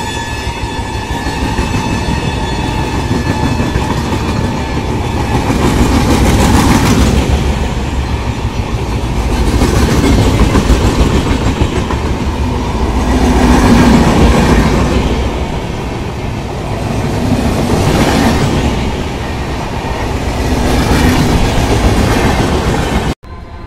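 Indian Railways express of LHB passenger coaches rolling past at speed, wheels clacking over the rail joints in a steady rumble that swells and fades every few seconds. The sound cuts off abruptly just before the end.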